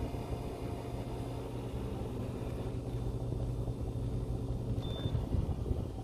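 Dometic Duo-Therm Penguin rooftop air conditioner running and cooling: a steady low hum under the rush of its blower.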